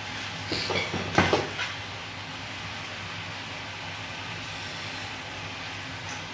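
Steady hum from kitchen appliances at the stove. About half a second to a second and a half in comes a short cluster of clicks and rustles as things are handled at the pot.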